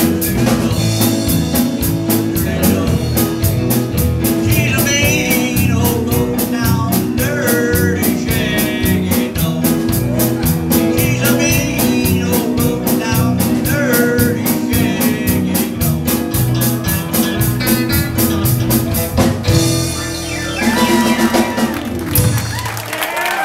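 Live rockabilly band playing: electric guitar, keyboard, drum kit with a steady fast hi-hat, and a male singer. About twenty seconds in the steady beat stops and the song winds up in a cymbal wash.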